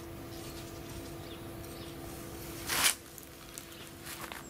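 Faint outdoor background with a steady low hum, broken about three seconds in by one short, loud rustle.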